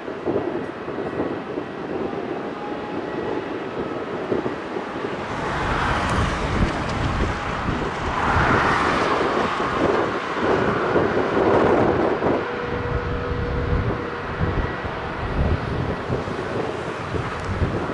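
Jet engine rumble of an arriving Air Europa Boeing 787-8 airliner. It swells about five seconds in, is loudest midway, then eases. Wind buffets the microphone throughout.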